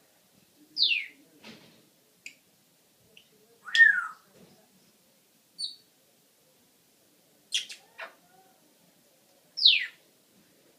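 Pet parrot making a string of separate short calls: sharp downward-sweeping whistles about a second in and again near the end, a louder squawk around four seconds in, and a few brief chirps and clicks between them.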